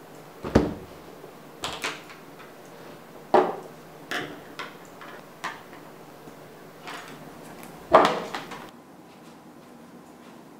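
A hardcover sketchbook and drawing supplies (ink bottle, paintbrushes, pencil) being set down on a table one after another: about eight separate knocks and taps, the loudest about half a second, three and a half and eight seconds in.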